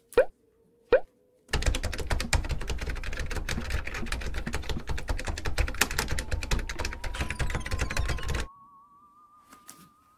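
A Maltese dog's paws mashing the keys of a Samsung laptop keyboard: a rapid, dense clatter of key clicks and thuds lasting about seven seconds, starting a second and a half in. It is preceded by two short rising boing-like sounds, and a faint steady tone slowly rises in pitch underneath.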